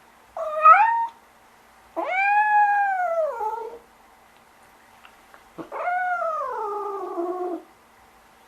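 Domestic cat meowing three times: a short meow, then two long drawn-out meows, the second rising and falling, the third sliding slowly down in pitch.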